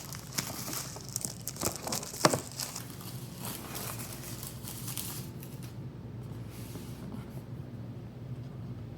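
Retail packaging being opened by hand: plastic and cardboard crinkling and tearing, with sharp clicks and rustles. It settles into quieter handling after about five and a half seconds.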